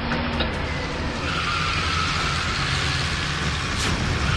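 Car engine sound effect: the sports car's engine running after the ignition key is turned, then the car pulling away, with a hiss of road noise building about a second in.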